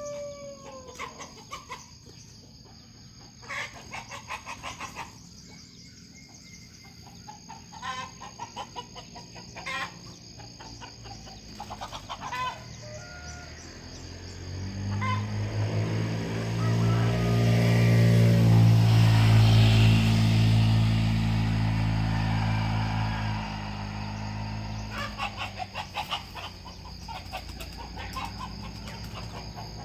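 Village chickens clucking in short runs, with a rooster crowing at the start, over a steady high insect drone. In the middle a vehicle engine passes on the road, rising to the loudest sound and fading away.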